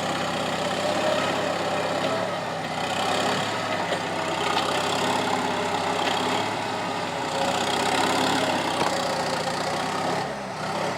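Skid steer engine running steadily at a constant speed.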